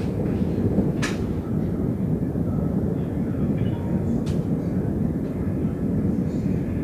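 Severe thunderstorm: a steady low rumble of thunder and storm noise, with two sharp ticks, about a second in and a little past four seconds in.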